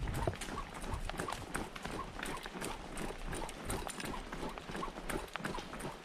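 Footsteps of people jogging on a road, a steady rhythm of footfalls about three a second.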